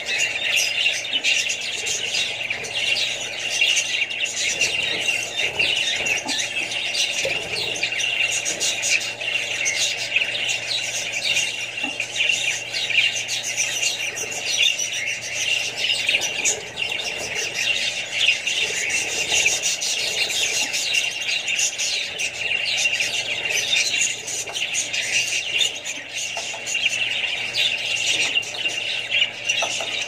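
Caged budgerigars chattering without a break: dense, overlapping chirps and squeaky warbles.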